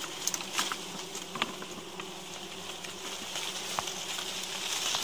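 Giant honeybees buzzing in a steady hum, with scattered sharp snaps and clicks over it.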